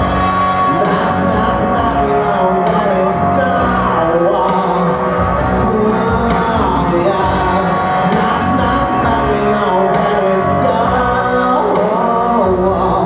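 A man singing into a handheld microphone through a PA, holding long notes over a recorded backing track with a steady beat.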